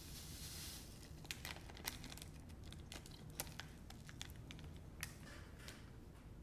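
Granular crystal powder pouring from a foil packet into a plastic container, a soft hiss that stops about a second in. It is followed by scattered faint crinkles and light clicks as the packet is shaken out and handled.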